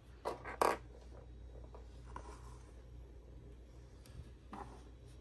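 Two short scraping sounds close together in the first second, then a few faint rustles, over a low steady room hum: handling noise.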